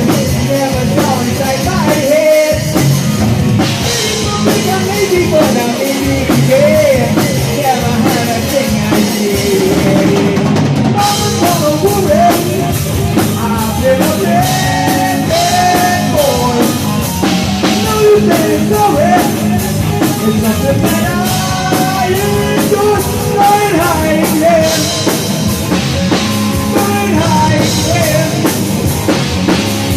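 Hard rock band playing live, with a drum kit and a gliding, bending lead line over a steady bass and rhythm bed, and no clear sung words.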